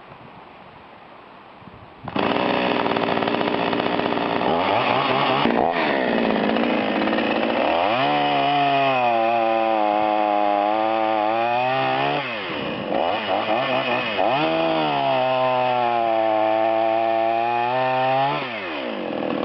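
Two-stroke 45cc petrol chainsaw starting suddenly about two seconds in at high revs. Its engine note twice falls and holds lower for several seconds, pulling down under load as it cuts, then rises again as it frees up.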